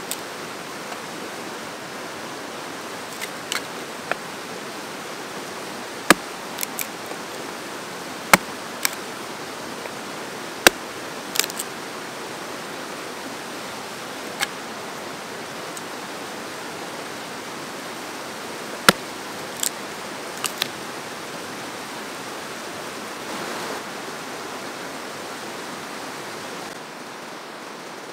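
Steady rush of a fast-flowing creek, with irregular sharp knocks a few seconds apart as a small hatchet splits sticks of kindling on a log.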